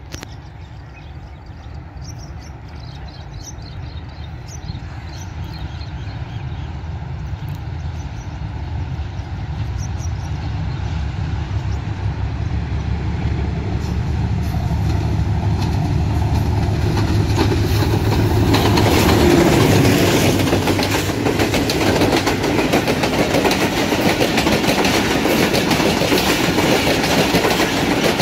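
Hitachi PHA-20 diesel-electric locomotive approaching with a low engine rumble that grows steadily louder, passing about two-thirds of the way in. Passenger coaches then roll by, wheels clattering over the track.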